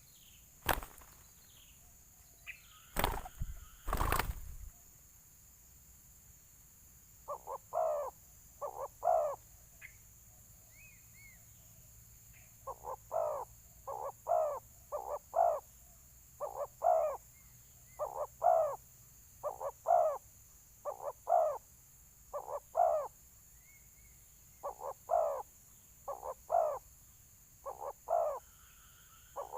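A few sharp knocks in the first four seconds. From about seven seconds on, spotted doves coo in short repeated phrases of two or three coos, about every one and a half seconds: the aggressive calling of a fighting dove answering a decoy bird.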